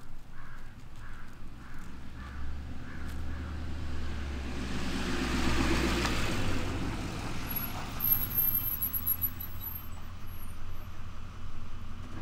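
A road vehicle passing by, growing to its loudest about six seconds in and then fading, its low engine rumble dropping away suddenly about halfway through.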